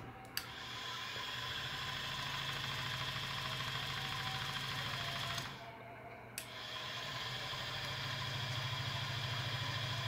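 3D-printed toy washing machine running: its small electric motor turns the drum through a belt, a steady mechanical hum with vibration. About halfway it stops for a second, there is a click, and the drum starts up again and runs on, slowly getting louder.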